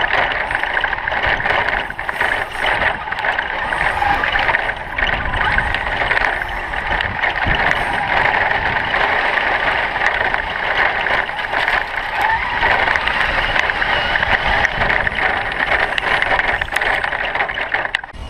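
Traxxas E-Maxx RC monster trucks driving hard: steady electric motor and gear whine mixed with rolling tyre and drivetrain noise.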